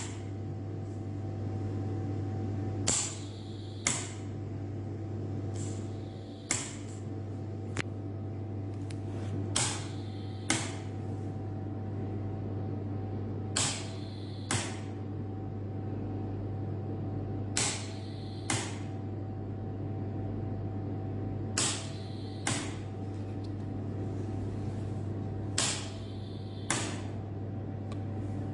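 Medical ventilator cycling at a steady rate of about one breath every four seconds. Each cycle brings a pair of short sharp clicks about a second apart, over the machine's steady hum.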